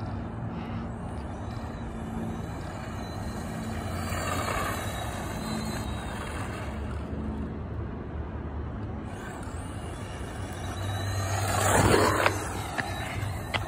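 Radio-controlled trophy truck running on asphalt, its motor and tyres making a steady noise that swells briefly and then surges loudly as it passes close by near the end.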